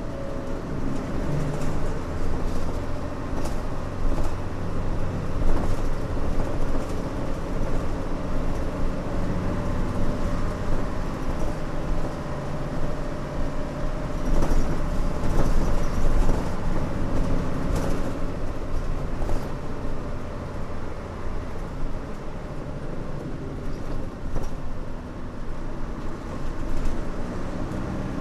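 A Mitsubishi Fuso Aerostar city bus's 6D24 inline-six diesel engine running as the bus drives, heard from inside the cabin. The engine note shifts in pitch over the stretch, above steady road noise.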